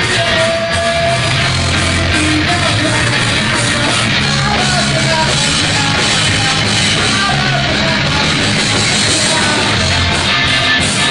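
Live rock band playing loud: electric guitars, bass and drums.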